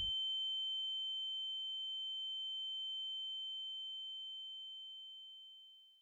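A single steady high-pitched electronic tone, the film-style ringing-in-the-ears effect that follows a crash. It fades slowly away toward the end, just after a burst of loud noise cuts off at the very start.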